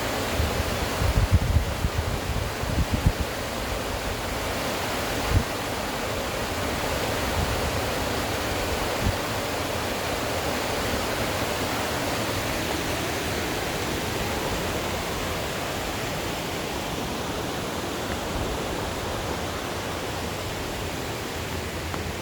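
Rushing water of a mountain stream and waterfall, a steady even roar. A few low thumps in the first three seconds and single knocks about five and nine seconds in.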